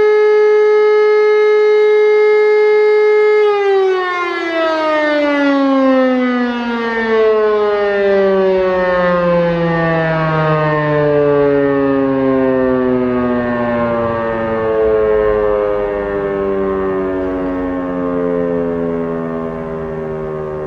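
E57 motor-driven civil-defence siren holding its steady all-clear tone, then switched off about three and a half seconds in and winding down, its pitch falling slowly as the rotor coasts to a stop.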